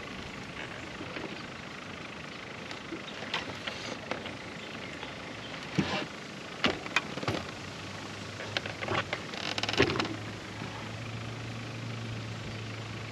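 Fishing tackle handled in a small boat: scattered light clicks and knocks from the rod, reel and line, with a brief rustling flurry near ten seconds. A low steady hum joins about eight seconds in.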